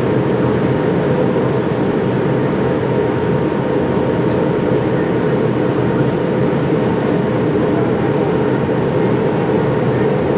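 Steady cabin roar inside an MD-82 airliner in its climb after takeoff: the rear-mounted Pratt & Whitney JT8D turbofan engines and the rush of air past the fuselage, an even low drone with a faint steady tone above it.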